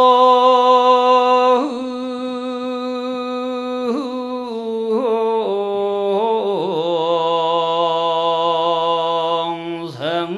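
Buddhist chant sung by a single male voice in long held notes, the pitch stepping down several times with short wavering turns between notes.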